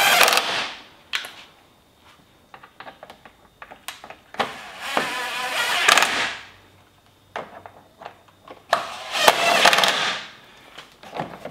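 Cordless drill driving screws into a plastic cover panel in three short runs: one at the start, a longer one about four and a half seconds in, and another about nine seconds in. Small clicks and handling knocks fall between the runs.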